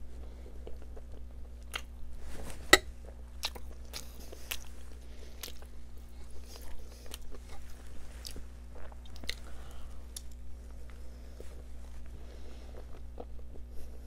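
A person biting and chewing Iraqi pacha, soft boiled sheep's tripe and offal, eaten by hand. Irregular wet mouth clicks throughout, with one sharp, louder click about three seconds in.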